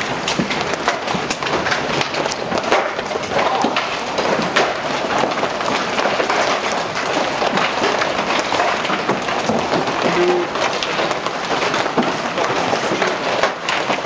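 Heavy hailstorm: large hailstones and rain pelting down, a dense clatter of many sharp impacts over a steady hiss.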